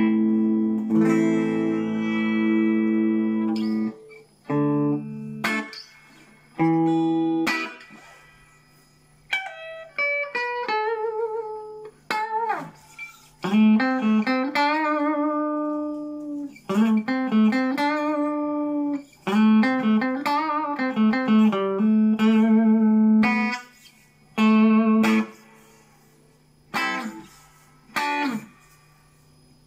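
Homemade mahogany Explorer-style electric guitar played clean on the neck pickup with the tone turned up. Ringing chords at first, then single-note phrases with vibrato, separated by short pauses.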